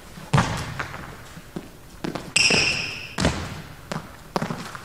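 Footwork in badminton shoes on a sports hall floor: heavy footfalls of lunging and recovery steps, with lighter steps between. About halfway through, a high rubber-sole squeak lasts under a second and ends in a loud thud.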